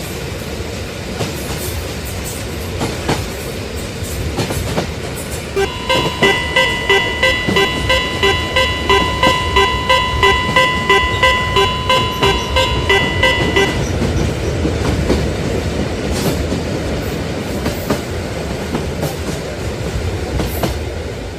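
A train running along the rails: a steady rumble with the clatter of wheels over rail joints. From about six seconds in, for some eight seconds, a level-crossing warning bell rings over it in even strokes, about two and a half a second, then stops.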